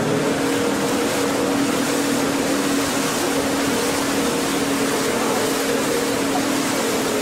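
A boat engine drones steadily, a constant low hum over a broad rushing hiss of water and wind, heard from aboard the moving boat.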